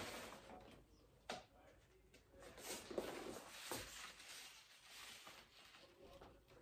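Faint rustling of a bouquet's paper wrapping as it is handled, with a few soft clicks and one sharper tick about a second in.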